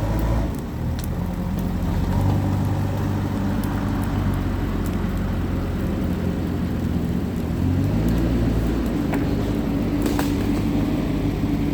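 Bonfire burning with crackling and a few sharp pops, over a steady low mechanical hum like an engine running nearby; the hum shifts in pitch about eight seconds in.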